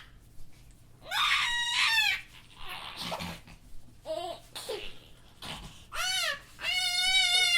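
Young child laughing hard while being tickled: high-pitched squealing laughs with breathy gasps between, and a long shriek of laughter near the end.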